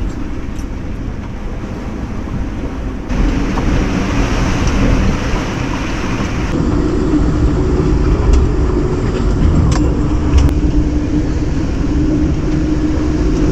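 Strong wind rumbling on the microphone and sea noise aboard a sailboat in a rough sea with about 30 knots of wind. It gets louder about three seconds in, and a steady low hum joins it about halfway through.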